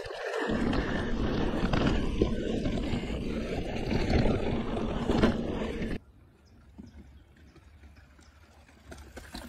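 Mountain bike riding a dirt singletrack, picked up by the rider's on-board microphone: a loud, rough rush of wind on the microphone mixed with tyre and trail noise and small knocks. About six seconds in it cuts off suddenly to a much quieter, faint rustle.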